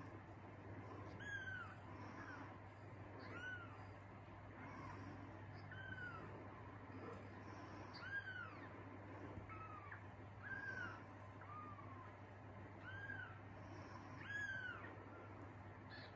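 Newborn Persian kittens mewing: thin, high calls that rise and fall, about one every second or two.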